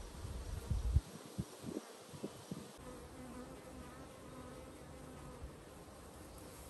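Honeybees buzzing steadily around an open hive, with a few soft knocks in the first three seconds.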